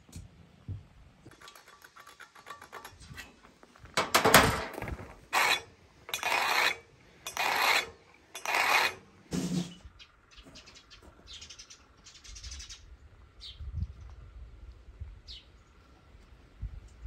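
A pointed steel tool scraped along a steel beam to scribe a cutting line: about six harsh scraping strokes of roughly half a second each, the first loudest. A few short bird chirps follow.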